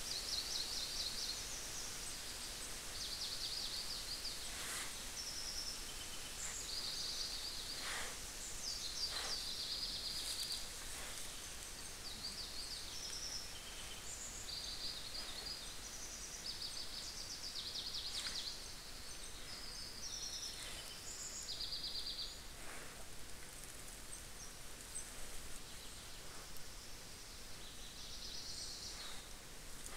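Small songbirds singing short, high trilled phrases again and again over a steady faint hiss, with a few brief snaps or rustles, the clearest about eight seconds in.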